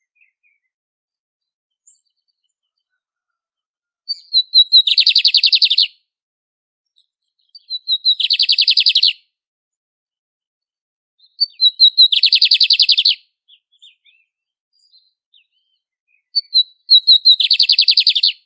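Lined seedeater (bigodinho) singing: four songs, about four seconds apart, each a few quick introductory notes followed by a rapid trill lasting about a second.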